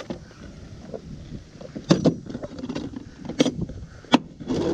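Wind and water noise around a small fishing skiff, with three sharp knocks spread through it.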